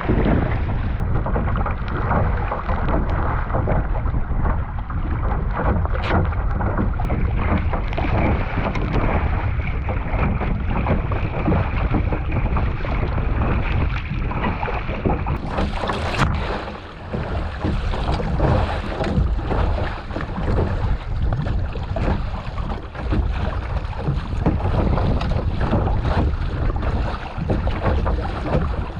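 Strong wind buffeting the microphone, with choppy lake water splashing around a kayak. The noise dips briefly about halfway through.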